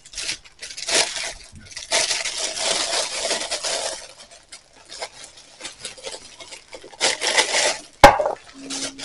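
Plastic wrapping rustling and crinkling in stretches as paper cups are worked out of a sleeved stack, with one sharp knock near the end, a cup set down on the counter.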